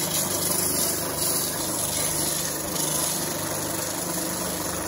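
Drill press running with a stack of glued plywood discs spinning in its chuck, sandpaper on a block held against them to sand the wooden cable drum: a steady motor hum under a rough, even rubbing hiss.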